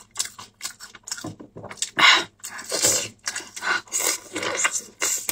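Wet mouth sounds of a person biting and chewing saucy braised lamb rib meat off the bone, coming in uneven bursts, loudest about two seconds in.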